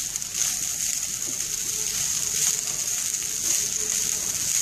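Wooden spatula stirring and scraping basmati rice around a hot nonstick pan, with a steady sizzle from the pan and a swell of noise with each stroke.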